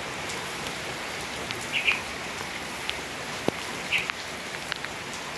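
Heavy rain falling steadily, a constant hiss with scattered drips and taps. Two short high chirps, about two seconds and four seconds in, are the loudest moments.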